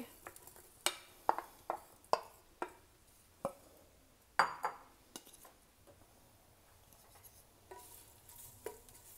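Chopped onion being added to a clay handi, with a series of sharp taps and knocks against the pot. Near the end a wooden spoon stirs the onion in the oil, with a few more knocks.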